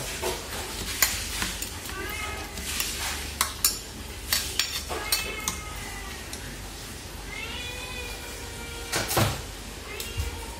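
Domestic cat meowing several times in short calls. Wooden chopsticks clink and scrape against a stainless steel bowl as food is mixed in it.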